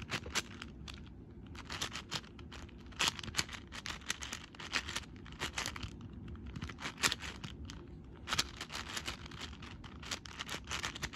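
6x6x6 speed cube, lubricated with Silk, being turned fast by hand: rapid, irregular clacks and short scrapes of plastic layers, coming in quick clusters with brief pauses.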